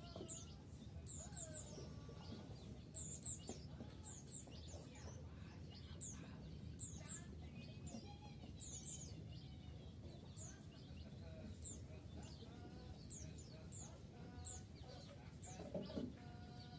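A flock of white-eyes (Zosterops, 'pleci') chirping: many short, high, quick calls, several to the second, with a few lower notes among them over a steady low background noise.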